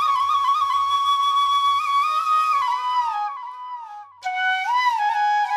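Background music: a solo flute melody with sliding, ornamented notes. One phrase dies away about three and a half seconds in, and a new, lower phrase begins about a second later.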